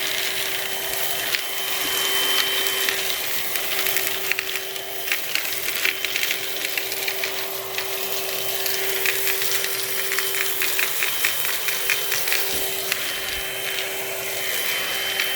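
Hoover Onepwr Blade cordless stick vacuum running with its upholstery tool: a steady, fairly quiet motor hum with airflow hiss. Scattered clicks and rattles run through it, thickest a little past the middle.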